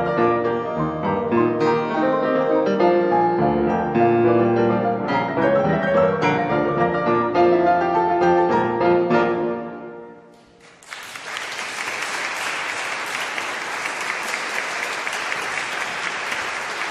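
Live classical music with piano ends, its last notes dying away about ten seconds in. An audience then breaks into steady applause.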